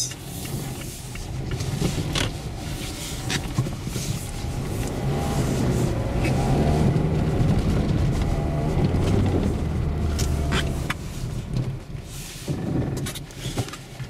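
Mazda on Dębica Frigo HP2 winter tyres driving on a snow-covered road, heard from inside the cabin. Engine and tyre noise rise as it speeds up through the middle, then die down near the end as it brakes, with the ABS engaging. A few sharp knocks come through along the way.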